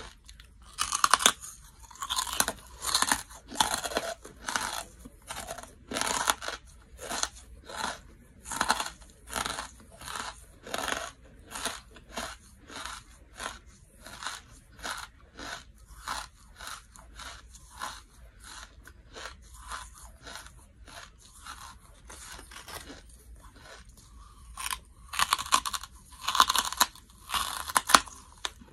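Lump charcoal being bitten and chewed close to the microphone: a run of dry, brittle crunches, roughly two a second. The bite-crunches are loudest in the first few seconds and again near the end, with softer chewing crunches between.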